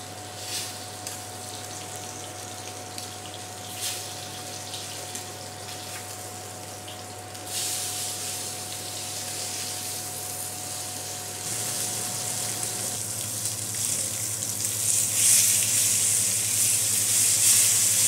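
Ram cutlets sizzling in a hot frying pan as their fat renders, with a few crackles early on; the sizzle grows louder about halfway through. A steady low hum runs underneath.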